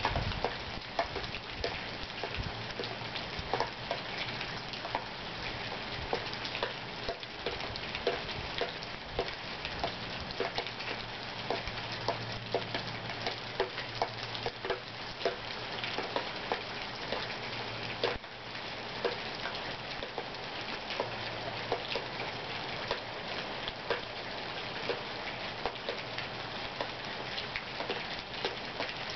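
Thunderstorm rain falling steadily, with frequent individual drops striking close by as short sharp ticks.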